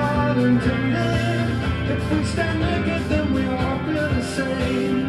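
A song with singing playing from a vinyl record on a Dual 1257 belt-drive turntable, steady throughout.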